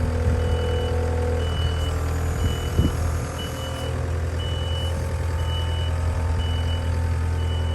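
Takeuchi TL12 skid steer loader's diesel engine running steadily while its backup alarm beeps about once a second, a sign the machine is reversing. A brief clatter sounds a little under three seconds in.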